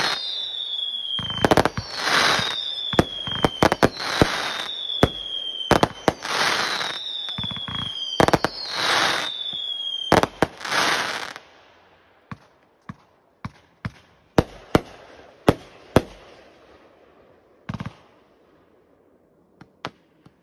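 Aerial fireworks going off: whistles falling in pitch about every two seconds, each followed by a bang and the hissing crackle of the burst. About eleven seconds in the barrage ends, and only scattered, fainter cracks and pops remain.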